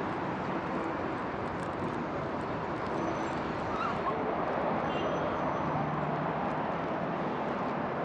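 Steady outdoor street ambience: a continuous rushing noise with no clear single event.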